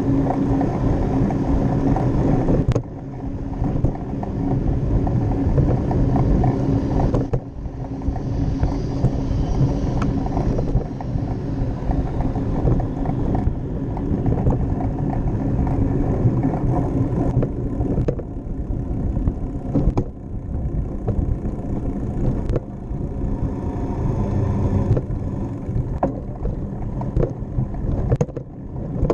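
Bicycle rolling along a paved path: steady tyre and frame rumble picked up by the bike-mounted camera, with frequent knocks and rattles as it passes over cracks and joints in the pavement.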